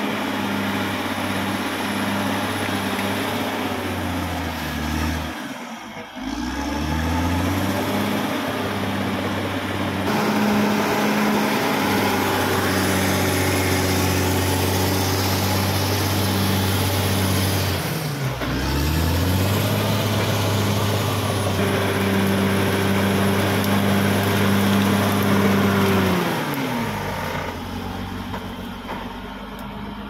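Caterpillar D6R XL bulldozer's diesel engine running hard as the dozer pushes earth. Its note dips sharply and picks up again twice, about five and eighteen seconds in, then drops away near the end.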